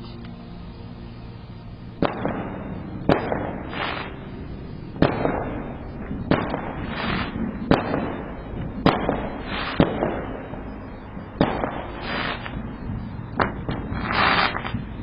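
Fireworks going off: a string of sharp bangs, roughly one every second or so, starting about two seconds in. Each bang is followed by crackling, with a longer crackle near the end.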